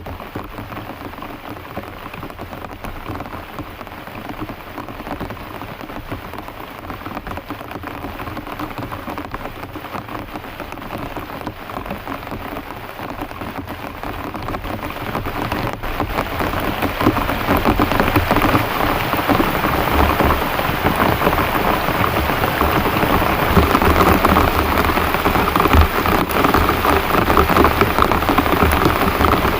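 Heavy rain pouring steadily, growing louder about halfway through.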